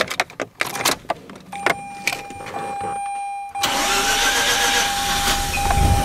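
Mazda RX-8's two-rotor Wankel engine being started: a few clicks, a steady high tone, then the engine catches about three and a half seconds in and runs, with a surge near the end.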